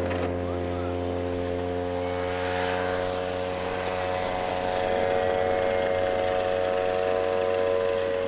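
Radio-controlled tow plane's engine and propeller at full throttle, holding a steady pitch while towing a scale glider off the ground and into the climb.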